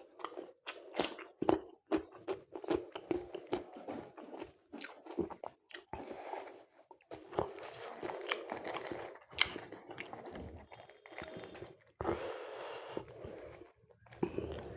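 Close-miked chewing and crunching of food, with many sharp irregular mouth clicks and crackly bites.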